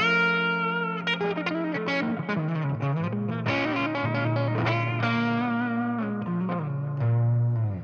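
Maybach Lester 59 Les Paul-style electric guitar played through a ZVex Box of Rock distortion pedal into a Milkman Half 5W amp: a distorted single-note lead phrase with string bends and vibrato. It ends on a loud held low note that is cut off at the very end.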